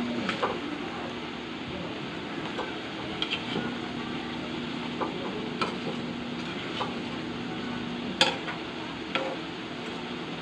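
Butter garlic sauce bubbling and sizzling around shrimp in a large metal pan while a metal spatula stirs them, clicking and scraping against the pan several times, loudest about eight seconds in. A low steady hum comes and goes underneath.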